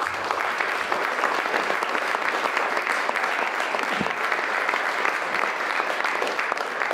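Audience applauding steadily, a dense patter of many hands clapping that dies away about a second after the end; a single knock stands out about four seconds in.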